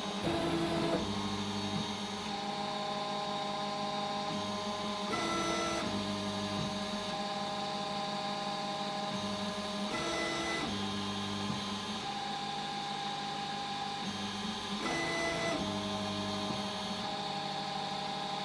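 Telion Rock V3.0a 3D printer's stepper motors whining as the print head moves from point to point over the bed during automatic bed mapping. The pitch jumps in steps with each move, and a busier stretch of tones comes about every five seconds.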